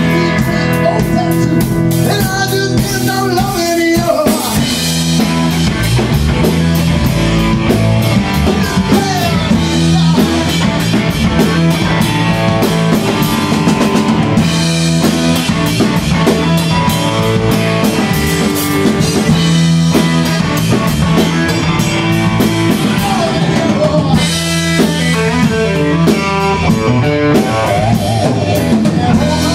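A rock band playing: drum kit with cymbals keeping a steady beat, electric guitar, and a man singing into a microphone.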